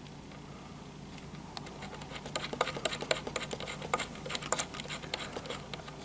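Small irregular clicks and scratches of fingers threading metal CPU-cooler standoffs finger-tight onto the backplate screws through a motherboard, starting about a second and a half in.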